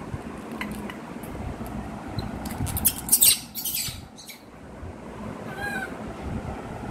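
A baby monkey's short, high squeaky call near the end, with scattered light clicks and a loud burst of hissing noise about three seconds in.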